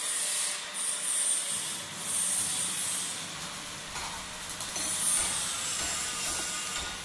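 Hissing sizzle of welding sparks, a sound effect that swells and eases in strength.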